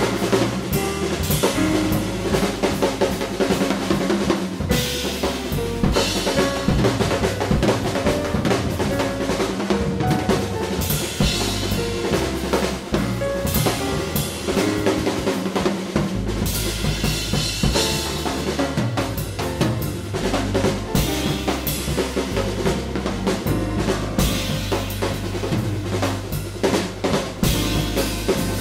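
Background music led by a drum kit, with a steady, dense beat over sustained notes.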